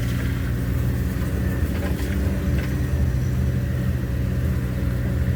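Car engine running steadily with road noise as the vehicle drives slowly: an even, unbroken low drone.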